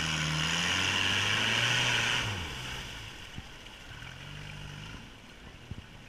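Dodge Raider's engine pulling hard through a mud hole, with a loud hiss of mud and water thrown by the tyres. About two seconds in the revs and the hiss fall away, and the engine runs on more quietly.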